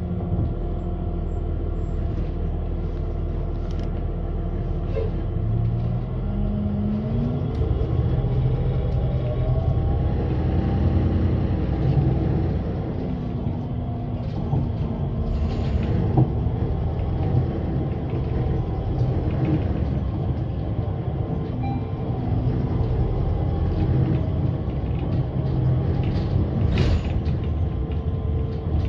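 Ride noise inside a moving bus: steady engine and road rumble, with creaks and rattles from the body. The engine note rises a few times, about six to eleven seconds in, as the bus picks up speed.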